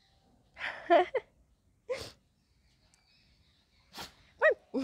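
Dog giving short snorts and huffs while play-wrestling with a cloth: a longer one about a second in, brief ones at about two and four seconds, then a short pitched vocal sound near the end.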